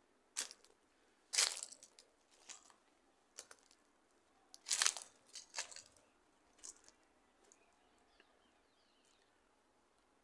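Footsteps crunching on a dirt and gravel path, about one step a second, growing sparse and faint after about seven seconds.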